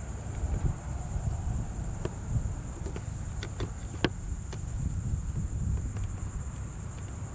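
Crickets chirping steadily, with a scattered series of short plastic clicks and taps, the sharpest about four seconds in, as a trim popper tool works at stubborn plastic push clips under a car's front bumper, over low handling rumble.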